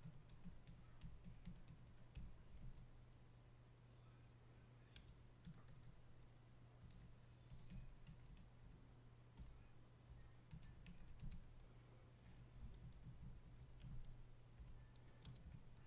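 Faint typing on a computer keyboard: short runs of keystrokes with pauses between them, over a low steady hum.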